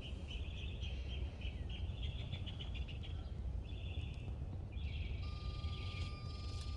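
Outdoor garden ambience: small birds chirping and twittering in bursts that come and go, over a low steady rumble.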